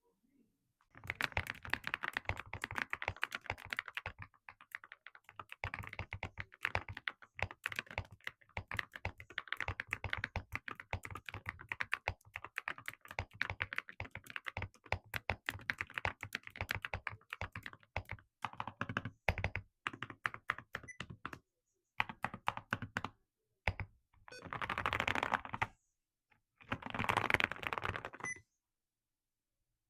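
Typing on an Eweadn GS75 mechanical keyboard with Eweadn Cream Pink switches and Cerakeys ceramic keycaps: long runs of rapid keystrokes with short pauses. Near the end come two dense flurries of very fast keypresses.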